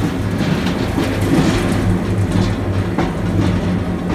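Weiler 1675 block grinder running empty, its 100 hp motor and gearbox turning the stainless auger with no meat in the hopper, so it runs without load. A steady hum with light, irregular clatter.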